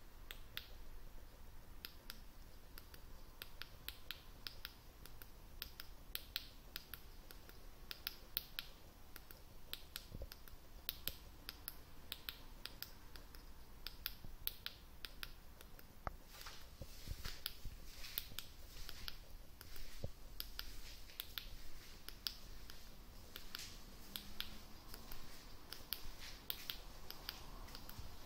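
Faint, irregular sharp clicks, several a second, with denser runs partway through.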